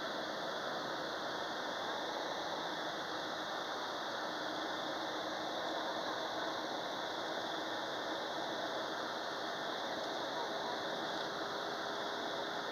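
Steady road and engine noise inside the cabin of a moving vehicle, with a faint steady hum in it.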